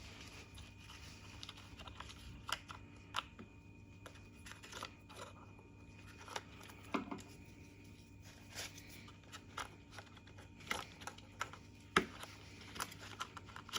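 Irregular small clicks, taps and rustles as a car's plastic charging-socket cover and its wiring are handled and pressed into place by hand, over a faint steady hum.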